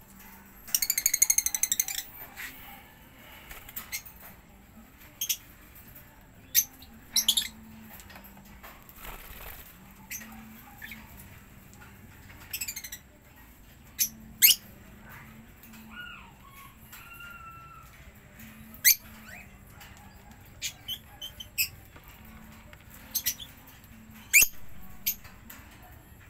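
Budgerigars in an aviary calling: scattered sharp, short chirps and squawks. A rapid burst of harsh chatter comes about a second in, and soft warbling whistles come around the middle.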